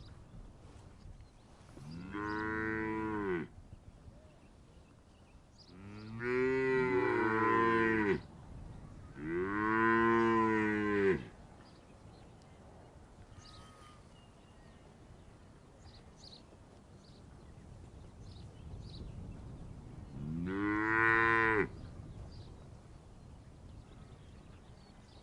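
Cattle mooing: four long, drawn-out moos, each rising then falling in pitch. The second has two overlapping voices, as if two cows call at once.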